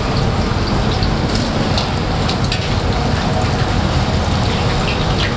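Pork pieces deep-frying in a wok of hot oil: a steady sizzle, with a few light clicks of the metal strainer and spoon against the pan.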